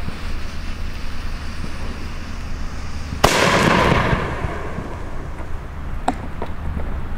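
A 50 mm firework mine (Feuertopf) fires with a sudden loud launch about three seconds in, followed by a rushing hiss of sparks that fades over about a second. Two faint sharp pops follow a couple of seconds later.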